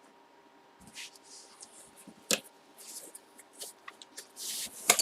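Hands handling packaging and items on a table: soft rustles and swishes with scattered light clicks, one sharp click a little over two seconds in.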